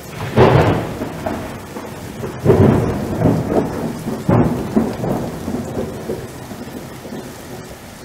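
Thunderstorm: three claps of thunder about two seconds apart, each rumbling away, over steady rain.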